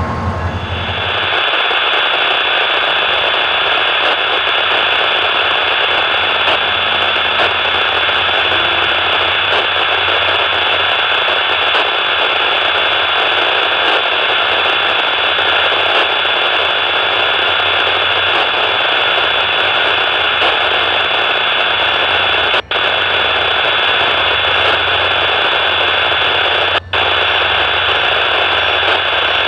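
Steady, loud hiss with a thin high whine above it. It drops out for an instant twice near the end.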